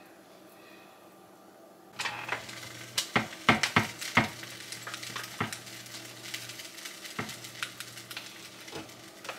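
Tuna melt sandwich sizzling on an electric contact grill, starting about two seconds in, with a run of sharp clicks and knocks from the grill lid and utensil, most of them between three and four seconds in.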